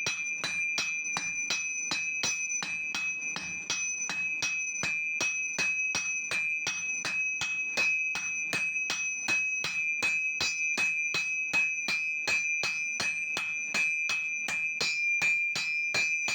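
Hammer striking hot iron on an anvil in a fast, even rhythm of about three blows a second, with a steady high metallic ring running under the blows.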